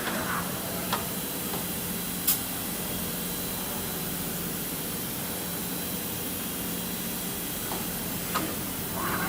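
Kira CNC tap-and-drill center running, giving a steady hiss over a low hum, with a few light clicks.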